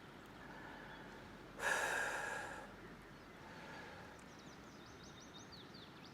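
A man's single heavy exhale through the nose, a breathy sigh lasting about a second.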